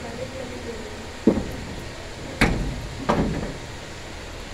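Sliding bolt on a metal door being forced, clanking three times, loudest in the middle, as it fails to slide into a catch that is out of line.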